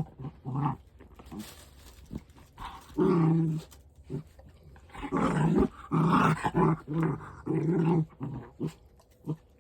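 A dog growling in a series of short low growls and grumbles, loudest and most frequent in the middle of the stretch.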